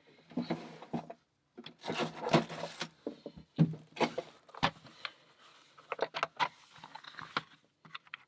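Small metal hand tools and bits being handled, rattling, clicking and scraping in irregular bursts, loudest about two seconds in.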